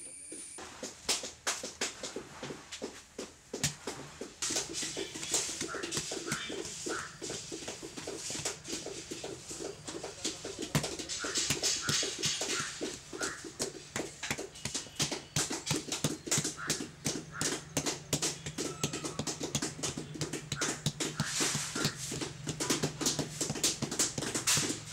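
Hands rapidly patting and slapping wet clay pressed over the base of an inverted fired pot used as a mould, several soft slaps a second. Short high-pitched calls sound in the background now and then.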